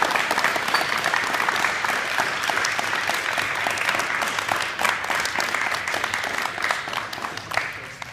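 Small group of people applauding, a steady patter of hand claps that dies away near the end.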